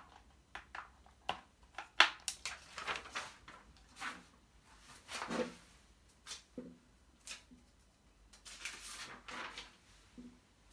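Handling noise from a paper worksheet being pulled off a whiteboard: magnets clicking and knocking against the board and paper rustling. The sharpest click comes about two seconds in.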